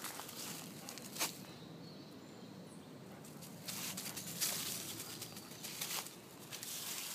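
Footsteps on dry fallen leaves, rustling and crackling, with a sharp crackle about a second in and a denser stretch of rustling around four to five seconds in.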